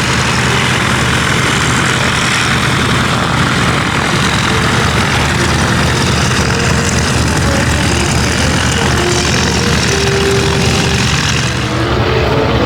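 Vintage biplane's piston engine and propeller running loud and steady close by, with a dense rushing hiss from the propeller.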